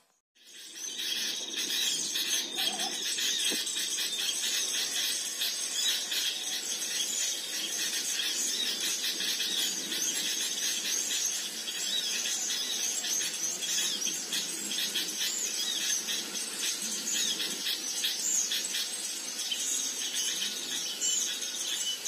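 Small birds chirping: a dense, unbroken mass of quick, high-pitched chirps and short whistled glides that starts about half a second in.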